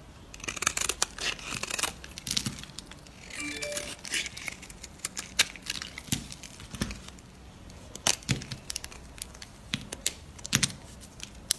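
Bar soap being carved with a snap-off utility knife and crumbled by hand: short scraping strokes of the blade and many sharp cracks as brittle soap shards break.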